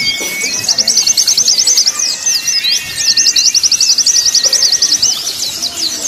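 Recorded white-eye (pleci) song used as a training track: fast, high-pitched chattering trills in two long runs, over thin, long, steady whistles.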